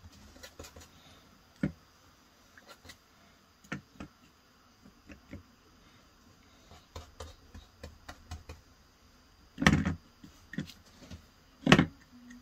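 Scattered light taps and clicks of a model locomotive body being handled on a wooden work board, with two louder knocks near the end about two seconds apart.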